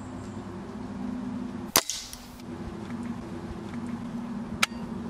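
Spring-powered Walther LGU underlever air rifle firing once about two seconds in: a sharp crack with a short ringing tail. A second sharp click follows near the end.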